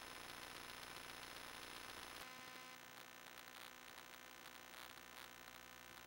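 Near silence: faint steady hiss with a low electrical hum.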